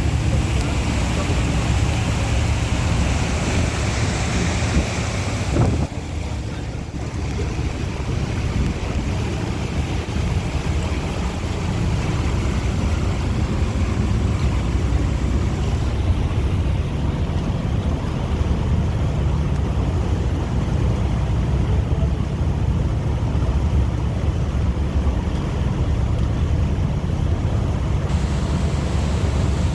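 Motorboat under way: a steady engine rumble and rushing water, with wind buffeting the microphone. The noise dips briefly about six seconds in.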